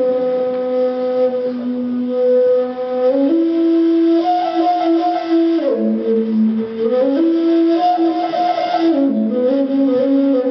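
A flute playing a slow melody of long held notes, changing pitch every two or three seconds.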